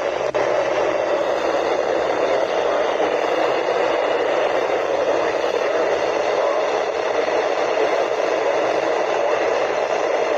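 Weather radio receiver giving out a steady hiss of static, with no voice or tone on the channel.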